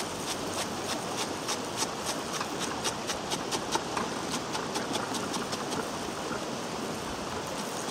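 Chef's knife chopping fresh parsley and mint on a wooden chopping board: quick, regular taps of the blade on the wood, about three a second, over a steady background hiss.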